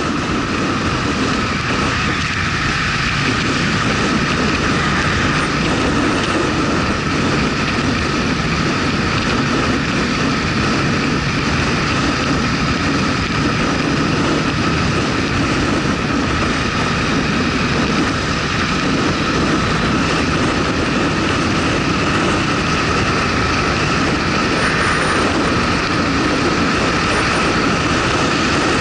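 Motorcycle riding at a steady speed: the engine running under loud, even road and wind noise, with no change in pace.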